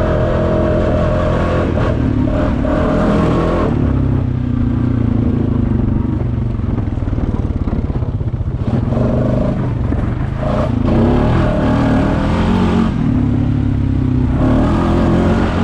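Honda Foreman ATV's single-cylinder four-stroke engine running while riding a dirt trail, its note rising and falling several times as the throttle is worked.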